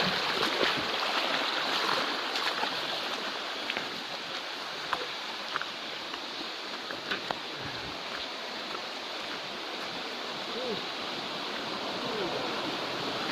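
Steady hissing rush of water escaping from a leaking water pipe, a little louder in the first two seconds, with a few small clicks over it.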